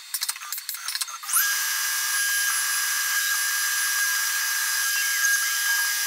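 Tormach 1100MX CNC mill running a dry-run program with the tool above the work and the coolant off, so nothing is cut. A few sharp ticks come first, then about a second in the spindle spins up with a short rising whine and holds a steady high whine.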